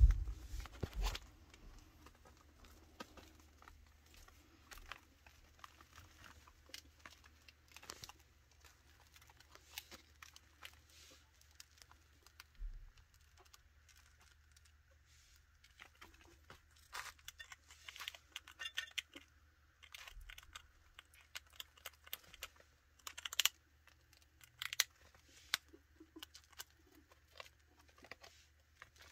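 Chinchillas gnawing and nibbling on wooden chew toys and treats: faint, irregular small crunches and clicks, with a denser run of crunching a little past the middle and a few louder knocks in the first second.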